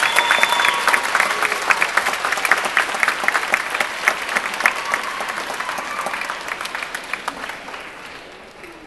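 Audience applauding, with a few shouted cheers near the start; the clapping thins and fades away over the last few seconds.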